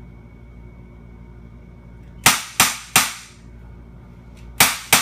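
Walther CO2 blowback BB pistol firing 4.5 mm BBs: sharp pops, three in quick succession a little over two seconds in, then two more near the end.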